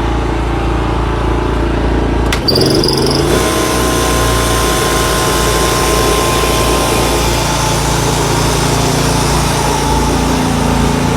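Portable inverter generator's engine running steadily. About two and a half seconds in there is a click and a short high tone, after which the engine note changes and runs a little louder.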